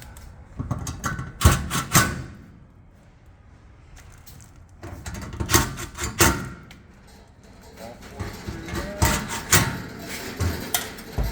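Gas grill parts knocking and clattering as they are handled and fitted together, in three bursts of sharp knocks with quiet pauses between.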